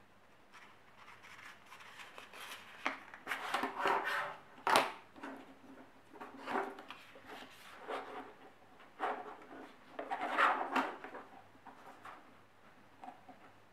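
Sheet paper rustling and rubbing as it is handled and folded against a plastic ruler, in several uneven bursts, with one sharp tap about five seconds in.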